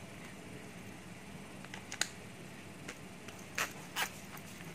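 Cordless drill chucks being handled, hard metal parts clicking and knocking: a few light clicks about two seconds in, then two louder clacks near the end, over a low steady hum.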